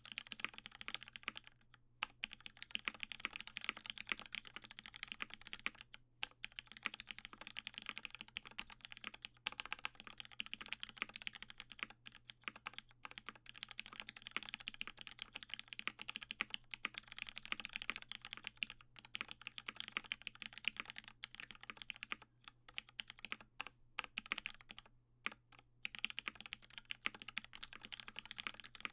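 Steady fast typing on a custom mechanical keyboard, a Matrix 8XV2.0 with an aluminium plate, lubed Cherry MX Black linear switches and GMK keycaps, giving a dense run of keystroke clacks broken by a few short pauses.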